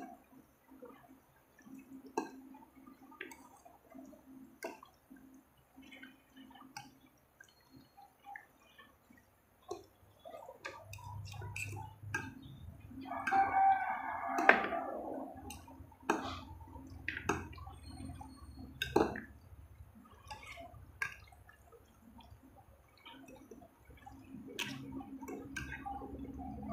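Forks clicking and scraping on a plate as spaghetti is tossed and mixed, in scattered light clicks. About halfway through, a louder pitched call-like sound is heard in the background.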